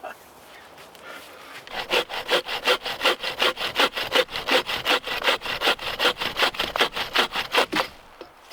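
Hand saw cutting through a wooden pole with steady back-and-forth strokes, about three a second. The sawing starts a couple of seconds in and stops near the end.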